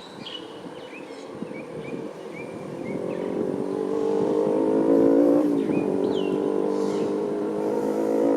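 A motor vehicle's engine drives past, growing louder to a peak about five seconds in, its pitch dipping as it passes. Birds chirp over it at the start and again near the end.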